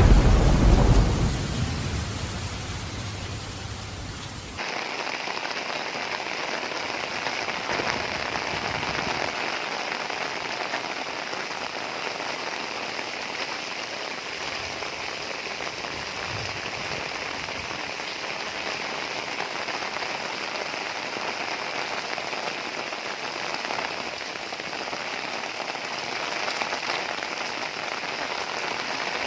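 Heavy rain falling steadily, with the tail of a low thunder rumble dying away over the first couple of seconds. About four and a half seconds in, the sound switches abruptly to an even, hissing downpour.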